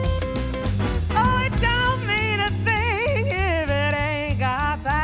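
Traditional New Orleans jazz band playing a swing tune. Bass and drums keep a steady beat under strummed chords, and from about a second in a lead melody with wide vibrato comes in over them.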